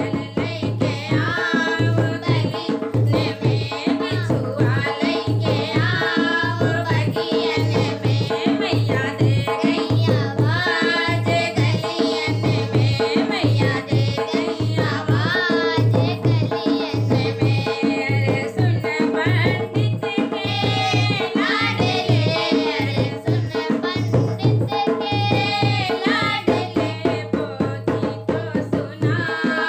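Hindi devotional folk song (bhajan): a voice singing over a steady hand-drum rhythm.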